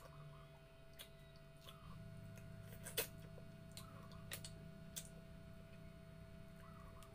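Quiet eating sounds: green mussel shells clicking as they are handled and picked open by hand, with soft chewing. A few sharp clicks stand out, the loudest about three seconds in, over a steady low hum.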